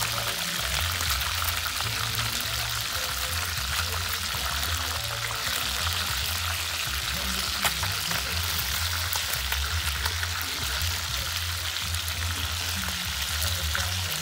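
Lobster pieces frying in hot oil in a pan, a steady sizzle and crackle, with one sharp tap about halfway through.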